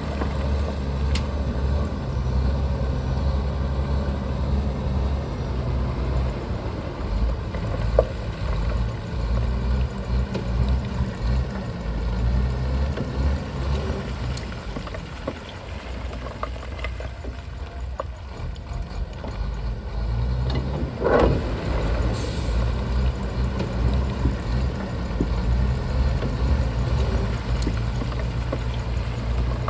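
Shantui bulldozer's diesel engine running steadily under work, easing off for a few seconds in the middle and then pulling again. About two-thirds of the way through there is a short rush of noise.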